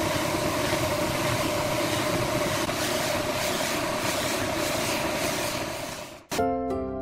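Air spray gun hissing steadily as finish is sprayed onto the wooden table, over the steady hum of a running motor, likely the air compressor feeding it. About six seconds in it cuts off abruptly and music with plucked, harp-like notes begins.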